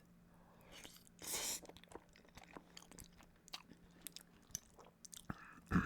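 A person chewing and eating close to the microphone, with small wet clicks of the mouth, a short airy sound a little over a second in, and a sharper sound near the end.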